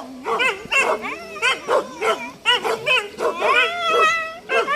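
Hunting dogs yelping and baying in a quick run of high, rising-and-falling yelps, with one longer drawn-out howl a little past halfway.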